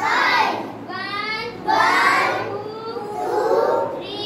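A group of young children singing a drill song together, in sing-song phrases of about a second each.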